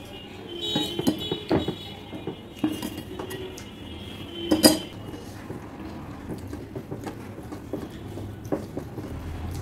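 A steel ladle and spoon clink against the dal bowl and the plates as dal is served, with several sharp clinks that ring briefly in the first five seconds. After that come quieter small sounds as rice and dal are mixed by hand on the plates.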